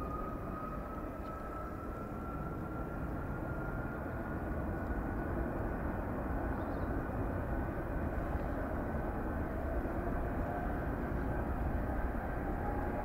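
Airbus A330-200's Rolls-Royce Trent 700 jet engines at takeoff power during the takeoff roll: a steady, dense engine noise with a thin whine that rises slowly in pitch, getting gradually louder as the airliner comes closer.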